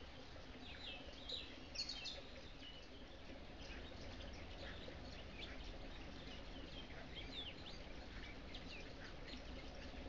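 Forest ambience of small birds chirping: many short, high chirps and twitters scattered throughout, a busier cluster about a second or two in, over a faint low rumble.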